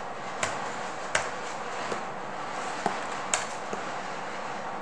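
A few sharp, irregularly spaced clicks from someone working a computer at a desk, four clear ones and two fainter ones, over a steady background hiss.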